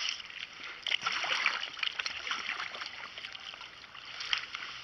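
Water splashing and sloshing at a kayak in short, uneven splashes, the loudest about a second in.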